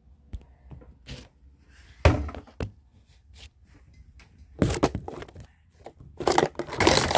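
Household objects being handled and put away: a few sharp knocks and thunks, then a longer burst of rustling near the end.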